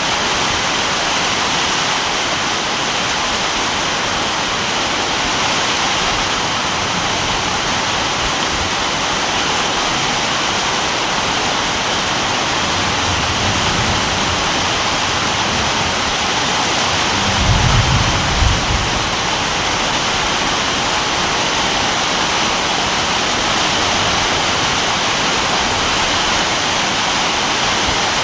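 Heavy rain falling steadily, a dense, even hiss. A little past the middle comes a brief low rumble.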